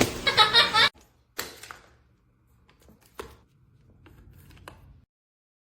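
A brief high voice, then a few light clicks and knocks, and the sound cuts off suddenly.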